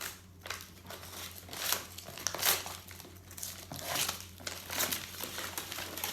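Gift packaging crinkling and rustling in irregular bursts as it is handled and unwrapped, with a few louder crackles about two seconds in.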